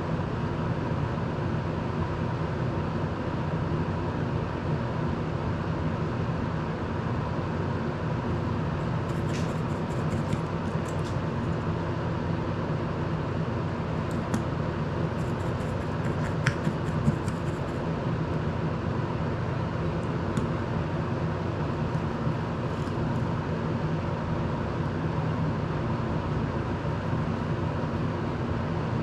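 Electric desk circulator fan running with a steady whir and a faint steady hum. A few light clicks come through around the middle.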